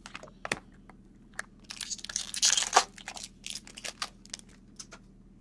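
A trading card pack wrapper being torn open and crinkled, with cards clicking and sliding against each other as they are handled. The crinkling is loudest about two to three seconds in.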